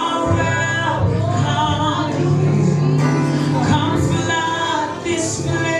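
Live worship music: a band with bass and keyboard accompanying female and male singers holding sustained sung notes, with the sound of a large hall.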